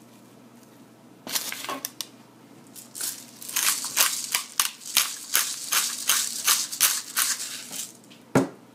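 Hand pepper grinder grinding peppercorns over an ear of corn: a few grinds about a second in, then steady grinding at about three turns a second for some five seconds. A single sharp knock near the end.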